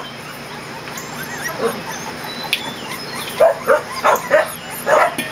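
20-day-old Kerry Blue Terrier puppies yipping. There are only faint calls at first, then a quick run of short yips, two or three a second, from a little over three seconds in.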